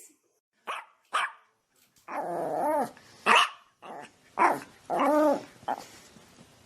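A dog barking about eight times in an irregular series, mostly short sharp barks with two longer, drawn-out ones.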